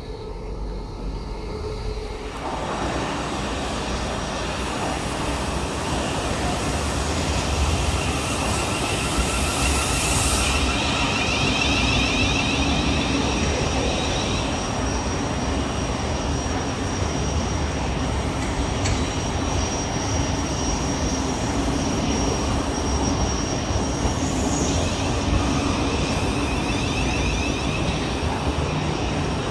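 Siemens Class 700 Desiro City electric train running at a platform: a steady loud hum and rumble with the gliding electronic whine of its traction equipment. There is a brief hiss about ten seconds in. The first couple of seconds are the quieter running noise heard on board the train.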